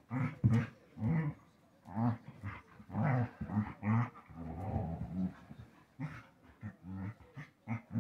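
Two dogs wrestling, growling in many short repeated bursts, with a few sharp clicks between the growls.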